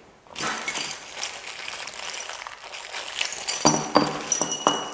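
A thin plastic bag crinkling and rustling as it is opened by hand. In the second half, small metal parts (a steel bracket, washers and a screw) clink and ring as they drop out onto the bench.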